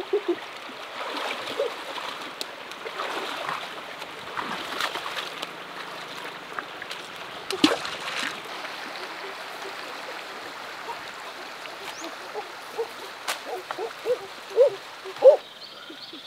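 Shallow river water flowing and splashing, with a sharp splash or knock about halfway through and a few short pitched calls near the end.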